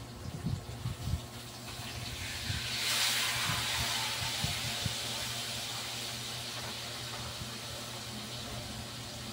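A broad hiss swells up about three seconds in and slowly fades away. Before it come a few soft, low knocks, likely from handling the fish on a plastic cutting board.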